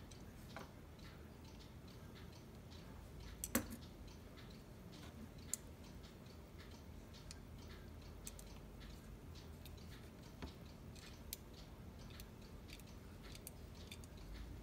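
Scattered small, irregular clicks and taps of hand work on cuckoo clock parts, the loudest a short cluster of sharp clicks about three and a half seconds in.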